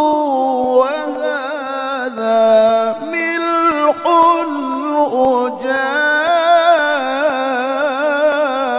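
Melodic Qur'an recitation (tilawah) by a male qari: one long, ornamented vocal phrase that sweeps up and down in pitch with many quick turns, with only brief breaths between its parts.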